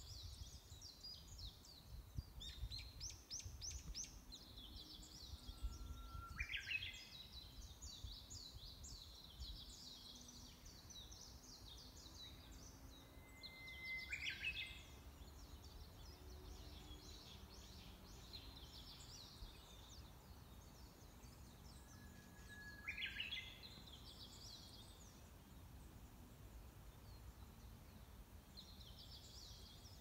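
Songbirds singing: a rapid, high twittering song runs on throughout, and about every eight seconds a long held whistle ends in a quick rising flourish.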